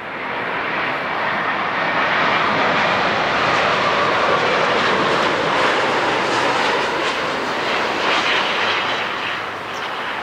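Boeing 787 Dreamliner jet airliner landing: a steady, loud jet-engine rush that builds over the first couple of seconds, holds, and eases a little near the end.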